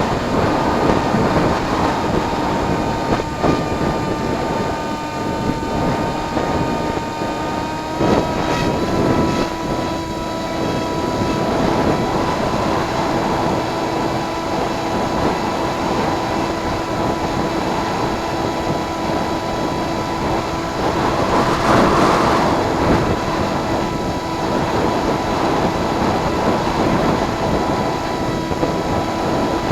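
Electric motor and propeller of a Firstar RC plane in flight, a steady drone with wind rushing over the microphone. The pitch steps up slightly about eight seconds in, and a louder gust of wind comes about twenty-two seconds in.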